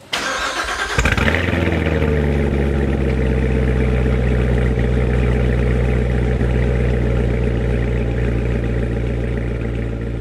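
2017 Chevrolet Corvette Z06's supercharged 6.2-litre V8 being started: about a second of cranking, then it catches with a loud flare of revs that falls away and settles into a steady idle.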